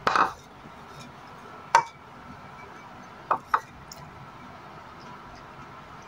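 Light clinks and knocks on porcelain bowls as food is picked from them by hand: a short clatter at the start, one sharp clink a little under two seconds in, and two quick clinks about a second and a half later, over a faint steady background hiss.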